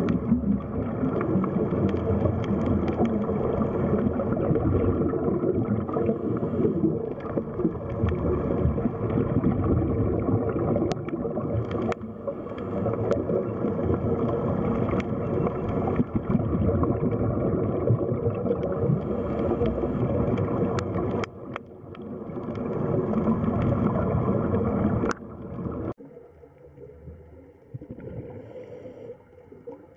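Underwater ambience: a dense, rumbling, gurgling wash of water noise that starts abruptly, with a few sharp clicks, then drops to a much fainter hiss near the end.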